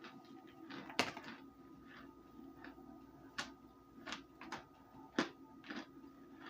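Baked cornstarch being bitten and chewed: about a dozen irregular, crisp crunches, the sharpest about a second in and again near five seconds, over a faint steady hum.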